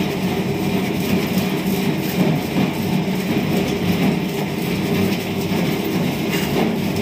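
Yashina 10 kg washing machine running, its wash motor churning water and detergent in the tub with a steady rumble.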